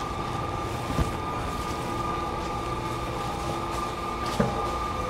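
Steady machinery hum with several constant tones under a noisy wash, broken by two short knocks, one about a second in and one near the end.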